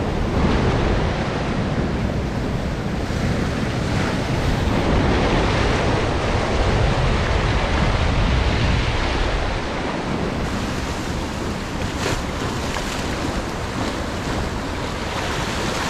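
Ocean swell breaking and washing over rocks, with wind buffeting the microphone; the low rumble drops away about ten seconds in.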